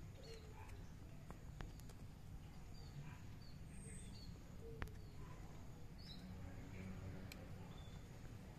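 Faint room background: a steady low hum with scattered short high bird chirps and a few soft clicks.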